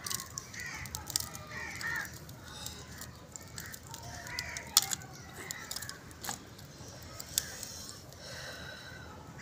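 Dry twigs snapping as they are broken off a branch by hand, a few sharp cracks with the loudest about five seconds in. Crows caw repeatedly in the background.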